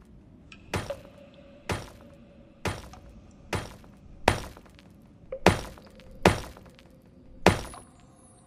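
A series of sharp knocks, eight in all, coming about once a second at a slightly uneven pace.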